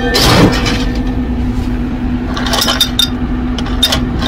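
Ice cubes clinking as they are scooped and tipped into a cup, in short clattering clusters in the second half, over a steady low appliance hum.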